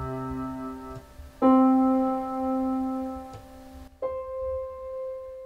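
Casio electronic keyboard playing three held notes, each higher than the last. The first dies away about a second in, the second sounds from about a second and a half to four seconds, and the third starts then and rings on, fading.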